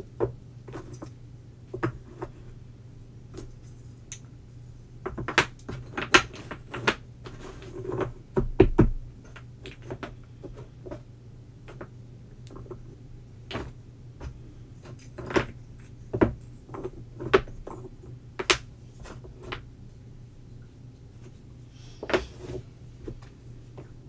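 Wooden jigsaw puzzle pieces knocking and clicking against each other and the tabletop as they are picked up, set down and fitted together, in sharp, irregular knocks over a steady low hum.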